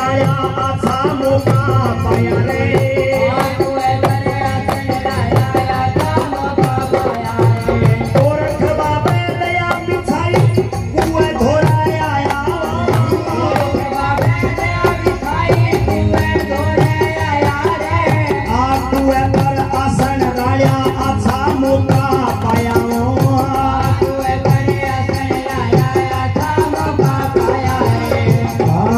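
Live Rajasthani folk devotional music: a sustained melody over drum beats, with many large hand cymbals clashing in rhythm.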